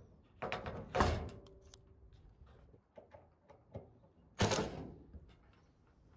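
Ryobi cordless impact driver run in short bursts, about a second in and again past four seconds, as it presses a drywall screw into corrugated metal roofing, with small clicks of the screw and bit on the metal in between. The screw has not yet gone through the metal.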